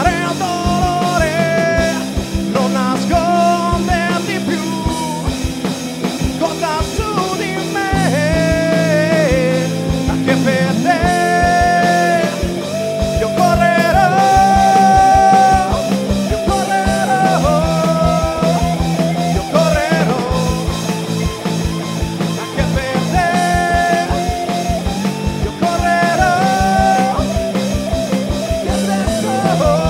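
Rock band playing at a steady beat: drums and bass under a lead melody of held and bent notes.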